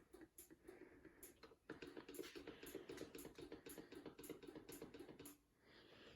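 Near silence: quiet garage room tone with faint, fairly regular ticks and a faint pulsing hum through the middle that stops about five seconds in.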